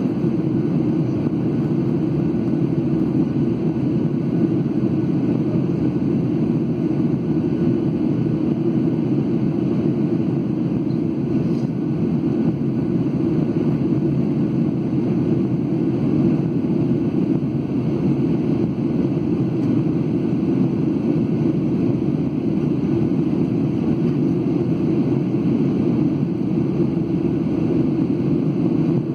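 Steady cabin roar inside a Boeing 737-800 climbing after takeoff: its CFM56 turbofan engines and the rushing air, deep and unchanging throughout.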